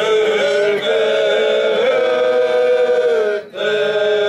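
Men's choir singing a Seto leelo, the traditional polyphonic folk song of the Seto people, in long held notes sung together, with a short break for breath about three and a half seconds in.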